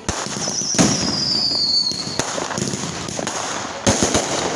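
Fireworks going off: sharp bangs and crackling, with a whistling firework whose whistle slides down in pitch over about two seconds, then two quick bangs near the end.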